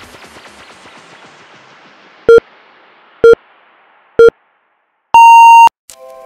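Interval-timer countdown: three short low beeps about a second apart, then one longer, higher beep that signals the start of the next interval. Background music fades out before the beeps and comes back in right after the long beep.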